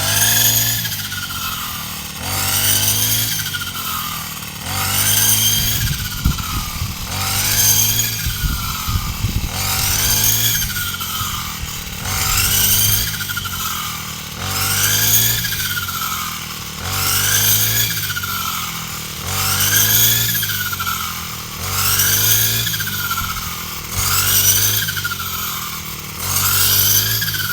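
A small engine running, its pitch and loudness swelling and falling in a steady cycle about every two and a half seconds.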